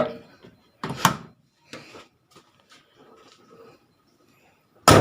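A car hood is handled with a couple of clunks and small clicks, then dropped shut near the end with a loud slam and a brief metallic ring, as a test of freshly adjusted rubber hood stops.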